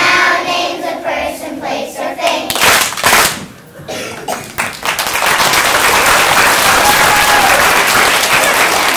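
A choir of young children sings the last lines of a song, then the audience breaks into steady applause from about halfway through.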